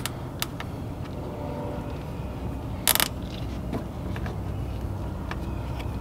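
A nylon zip tie being pulled tight through its ratchet, one short zipping rasp about three seconds in, with small clicks of the tie and the rubber mat being handled.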